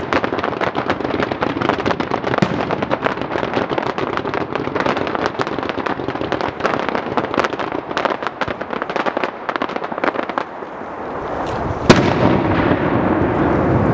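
Fireworks: a fast, continuous crackle of many small bursts that thins out after about ten seconds. A single sharp bang follows near the end as a shell bursts.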